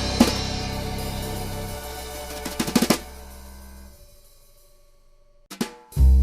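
Background music: a drum-led track ends with a short drum fill and rings out to near quiet, then a new upbeat track with a steady beat starts near the end.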